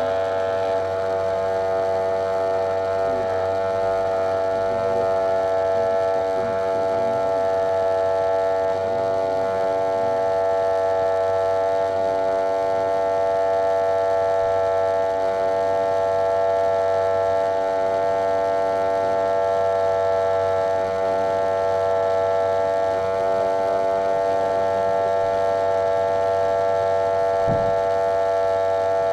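Wahl electric hair clipper buzzing steadily at one unchanging pitch with many overtones as its blade runs over short hair on a head. The clipper sounds very close and loud because the camera is fixed to the clipper.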